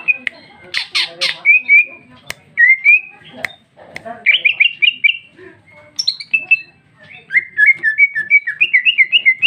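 Female greater green leafbird (cucak ijo) singing a varied song of whistled phrases with a few harsh notes and two sharp clicks, ending in a fast run of short rising-and-falling notes.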